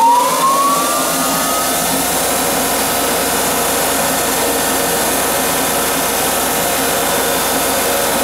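Grizzly G0602 metal lathe, its three-phase motor driven by a Teco-Westinghouse L510 VFD, spinning up in reverse: a whine rises in pitch and levels off about a second and a half in. The spindle then runs steadily at speed.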